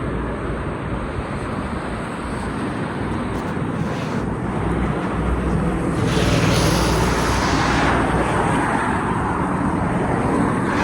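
Road traffic noise from passing vehicles, growing louder from about six seconds in as traffic comes closer.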